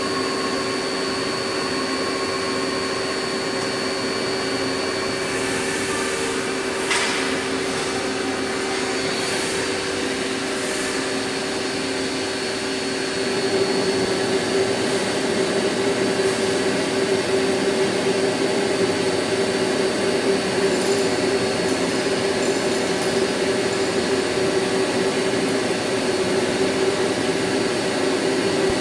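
Steady machine noise of CNC machine tools running: a continuous hum with several held tones, with a single sharp click about a quarter of the way in. It grows louder about halfway through.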